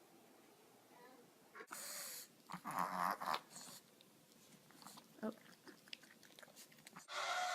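A pet animal making a short breathy burst and then a few short wheezy, noisy sounds, followed by scattered small clicks.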